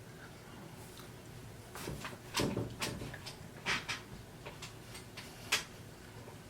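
Apple AirPods and their plastic charging case being handled: a handful of small, scattered clicks and taps, the loudest about two and a half seconds in.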